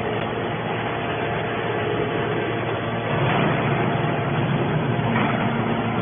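Hydraulic scrap metal baler running, a steady mechanical drone from its hydraulic power unit with a few held tones in it.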